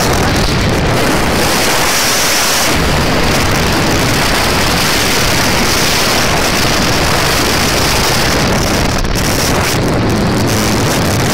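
Loud, steady wind rush buffeting the microphone of a camera riding on a moving motorcycle, with a constant low rumble underneath.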